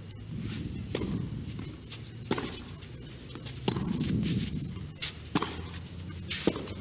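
Tennis ball struck back and forth in a rally: five sharp racket hits, about one every 1.1 to 1.6 seconds, over low steady background noise.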